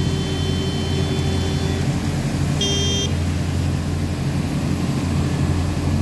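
Concrete pump running with a steady, loud engine drone. A high tone sounds over it for the first two seconds and again briefly about two and a half seconds in.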